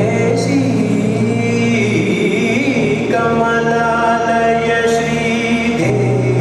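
Indian classical vocal music accompanying a dance: a voice singing long, held notes that bend in pitch.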